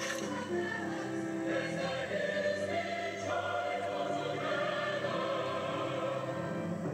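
Church choir singing, holding long chords that move every second or so, heard through a television's speaker.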